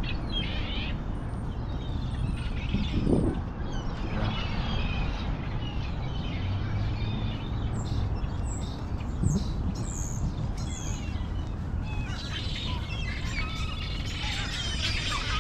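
A flock of birds calling at once in a feeding frenzy: many short, high calls overlapping, thickest in the last few seconds.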